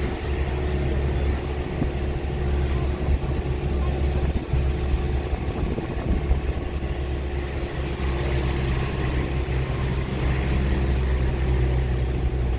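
Steady low drone of a running motor vehicle, holding an even pitch without revving.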